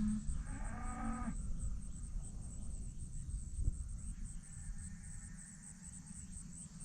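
A cow mooing once, briefly, about a second long near the start, over the steady high chirping of field insects.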